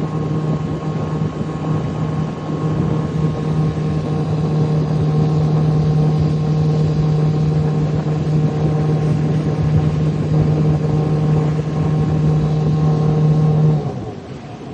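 Boat engine running steadily at wide open throttle, then cutting out near the end, its note sagging as it dies: an engine failure that looks like a bad fuel pump diaphragm.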